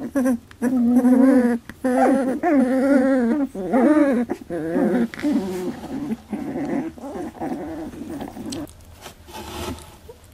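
Eighteen-day-old Labradoodle puppies whining and squealing as they scramble over one another, a run of wavering cries that grows fainter over the last few seconds.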